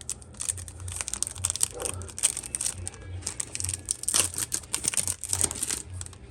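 A trading-card booster pack's foil wrapper crinkling and being torn open, in many quick crackles.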